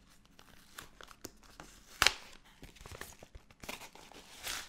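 A packaging pouch being torn open and rustled: scattered crinkles, a sharp loud tear about two seconds in, and more tearing and rustling near the end.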